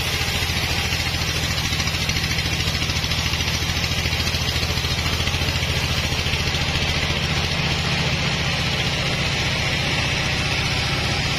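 Single-cylinder stationary diesel engine running steadily, driving a sawmill's V-belts, with an even hiss above its low chugging.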